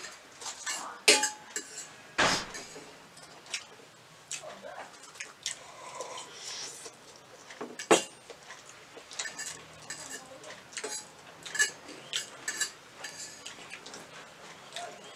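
Forks clinking and scraping against metal plates at an irregular pace while noodles are eaten, with a few sharper clinks standing out. Softer slurping and chewing sounds of eating noodles come in between.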